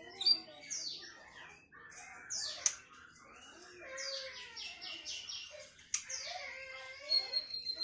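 Tledekan songbird singing: varied phrases of high, quick descending notes and chirps, with a fast run of notes about halfway through and a clear ringing whistle near the end.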